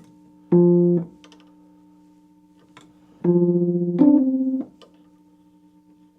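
Wurlitzer 200A electric piano playing chords through its built-in speakers with the tremolo switched on. A short chord comes about half a second in, then a longer chord near the middle that moves to another chord, its volume pulsing. A faint steady hum sits underneath between the chords.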